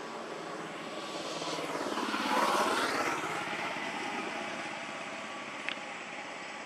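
A passing engine, likely a vehicle or aircraft going by, swelling to its loudest about two and a half seconds in and then fading away.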